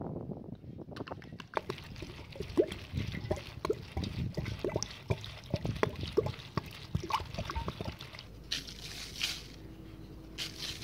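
Water poured from a clay jug onto fresh herbs in a large metal basin, splashing unevenly, starting about a second in.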